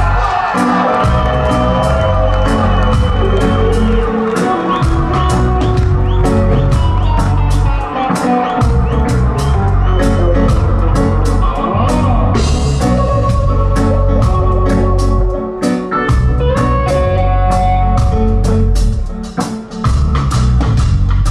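Live reggae band playing an instrumental passage: electric guitar lines over bass and drum kit, with a steady beat. The bass drops out briefly several times.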